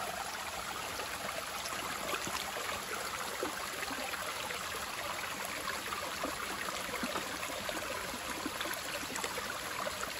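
Shallow creek water running steadily over and between rocks, a continuous rush and trickle.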